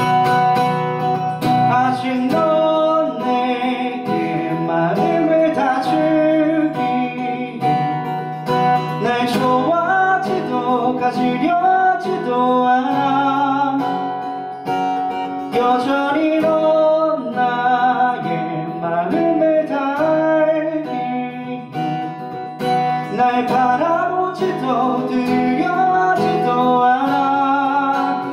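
Live acoustic guitar, strummed and picked, with a man singing a slow song over it.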